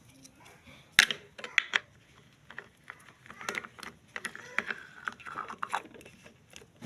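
Desk fan parts and packaging being handled: scattered clicks and knocks with rustling, the sharpest knock about a second in.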